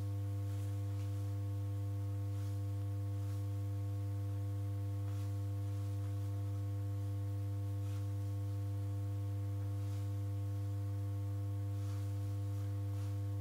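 Steady low electrical hum with a buzzy edge, unchanging throughout, like mains hum picked up in the recording.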